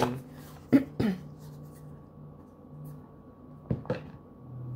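Handling noise from a tarot guidebook and cards being picked up on a table: two soft taps about a second in and two more near four seconds in, over a faint steady hum.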